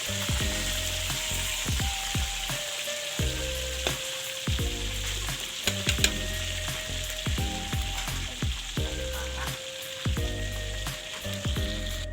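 Carp frying in hot oil in a wok: a steady sizzle that drops away at the very end. Background music with a repeating beat plays underneath.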